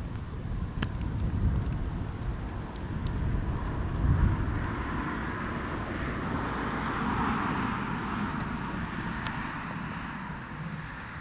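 Wind rumbling on the microphone, with a hiss that swells and fades near the middle, as of a vehicle passing in the distance.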